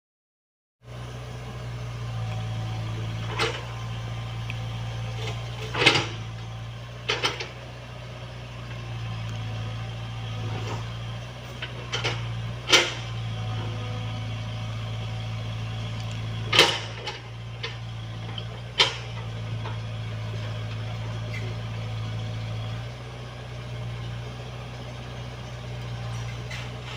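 Komatsu PC75UU mini excavator's diesel engine running steadily, its level rising and falling with the work. About half a dozen sharp knocks stand out, the loudest near the middle, as the machine digs.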